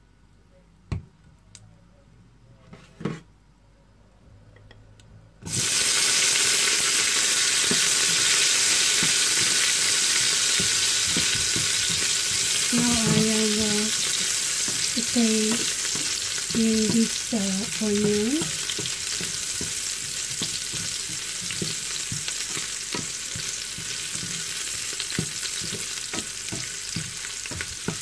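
Chopped red onion dropped into hot olive oil in a frying pan, starting a loud sizzle about five and a half seconds in that keeps frying steadily and slowly grows quieter. Before it there are a few light clicks of the pans.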